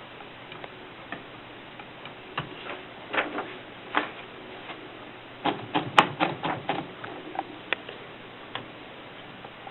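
Keys of a 1939 Erika 5 portable typewriter being struck: scattered single clicks, then a quick run of about eight strikes about halfway through, then a few more single clicks.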